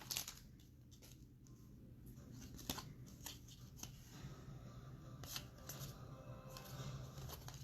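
Trading cards being handled and slid over one another, faint light flicks and rustles with a few small clicks, over a steady low hum.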